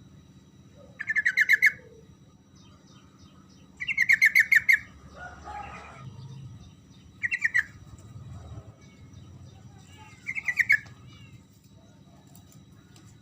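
Yellow-vented bulbul calling: four short bursts of fast, rapidly repeated notes, a few seconds apart, over a faint steady low hum.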